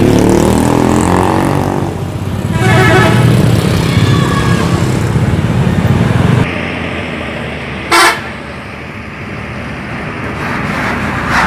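Tour buses passing close by with their engines running, sounding multi-tone 'telolet' horns in a string of pulsing toots in the first half, then one brief horn toot about eight seconds in.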